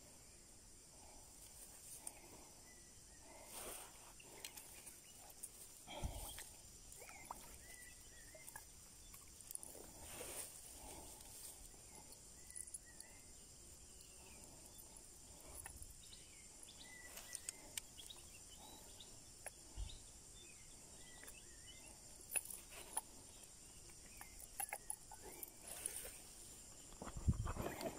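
Steady high insect chirring with small short chirps, over scattered soft clicks and rustles of hands unhooking a metal spoon lure from a fish held in a lip grip in the grass; the handling noise gets busier and louder near the end.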